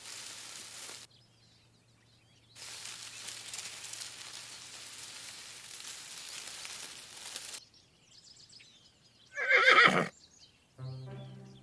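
A horse whinnying once, briefly and loudly, about nine seconds in, after two stretches of a steady hiss. Music with steady held tones starts near the end.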